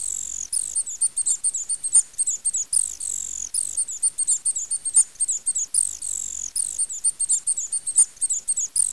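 Night ambience of high-pitched chirps and falling whistles, repeating the same pattern about every three seconds as a looped sound-effect bed.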